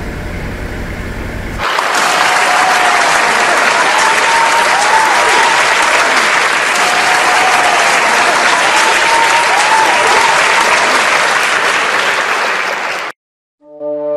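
Toyota Hilux diesel engine idling steadily for a second or two, then cut to a large crowd applauding loudly for about eleven seconds, which stops abruptly. Brass instruments start playing near the end.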